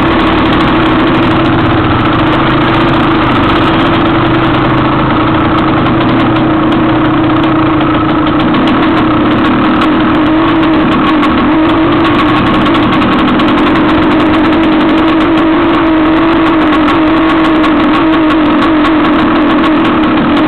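A dirt-bike or ATV engine idling, loud and steady in pitch throughout.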